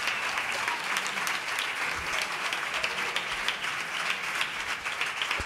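Audience applauding: many people clapping at once in a steady, dense wash of claps.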